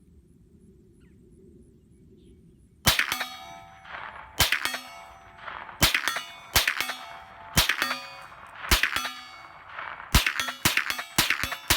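Thureon Defense 9mm carbine firing about nine shots, starting about three seconds in, roughly one a second and quickening near the end. Each shot is followed by the ringing clang of a steel target being hit.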